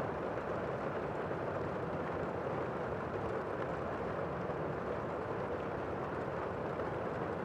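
Steady rain falling as an even, muffled hiss, with no separate drops or thunderclaps standing out.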